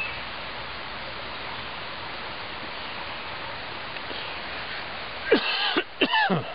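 Steady outdoor background hiss, broken about five seconds in by two loud, short vocal calls in quick succession, the second falling steeply in pitch.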